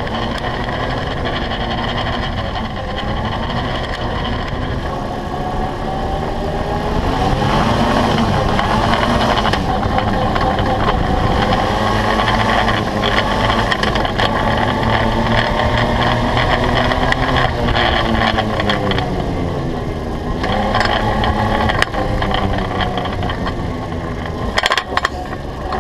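ATV engine running under way, its pitch rising and falling with the throttle. There are a few sharp knocks near the end.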